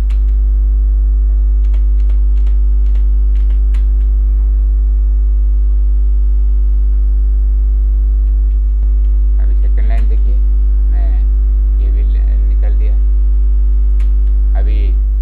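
Loud, steady electrical mains hum with a buzzy ladder of overtones, with faint computer keyboard and mouse clicks in the first half. Brief murmured voice sounds come in the second half.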